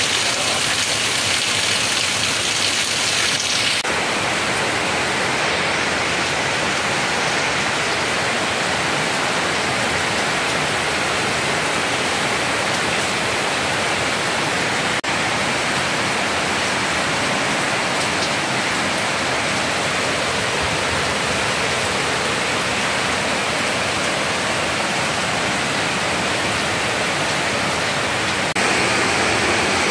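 Heavy rain pouring down steadily, a loud continuous hiss that changes character abruptly about four seconds in and again near the end.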